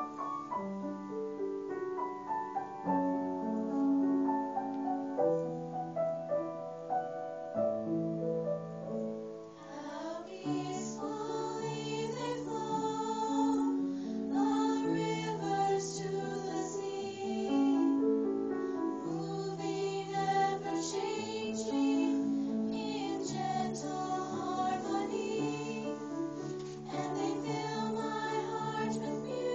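Piano accompaniment playing an introduction, then a small ensemble of young voices begins singing with the piano about ten seconds in.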